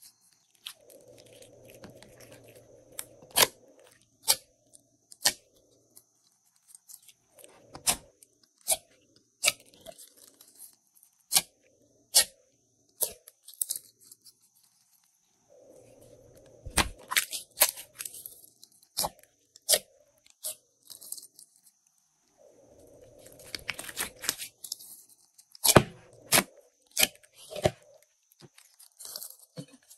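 Hands kneading and stretching glossy slime, with irregular sharp sticky pops and crackles as it pulls apart and presses down, between stretches of soft squishing.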